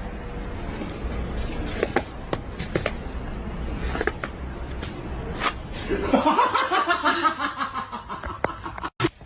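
A person laughing in a run of pulsed laughs from about six seconds in, over a noisy background with a few sharp knocks earlier on.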